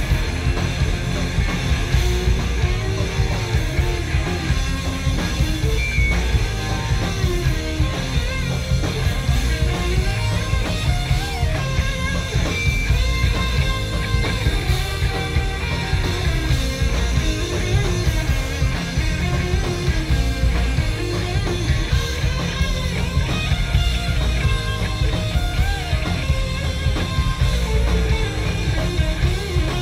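A live rock band playing an instrumental passage, with electric guitars over a heavy, steady low end.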